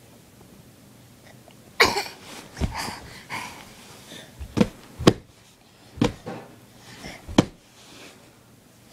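A string of sharp bumps and knocks close to the phone's microphone, about six of them starting about two seconds in, mixed with a young child's short breathy sounds.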